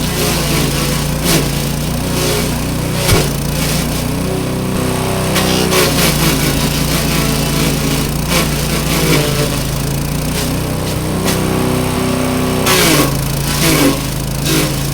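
Small engine-driven grass chopper running steadily, with short crunching bursts as oil palm fronds are fed in and chopped.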